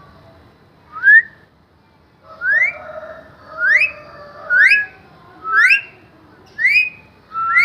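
Parrot whistling a string of about seven short rising whistles, roughly one a second, the last one rising and then falling.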